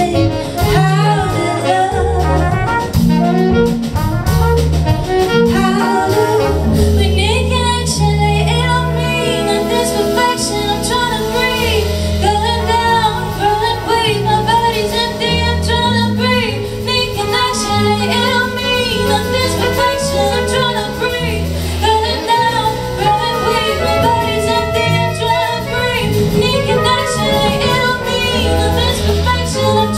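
A live band playing a jazz-tinged song: a woman singing over a drum kit, electric guitar, saxophone and trumpet, with a stepping bass line underneath.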